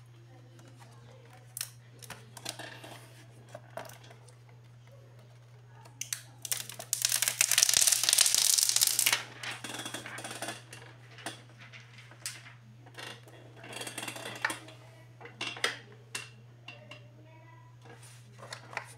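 Plastic-cased digital wall clock being handled on a desk: scattered taps, knocks and rubs, with a loud rasping rub lasting a couple of seconds near the middle and a shorter one a few seconds later. A steady low hum runs underneath.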